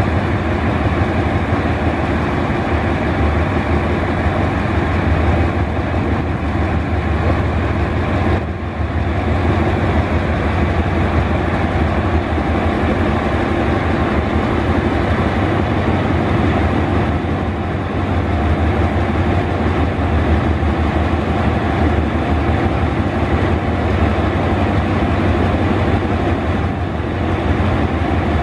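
Alsthom diesel-electric locomotive running steadily with a strong low hum as it creeps forward at the head of its train.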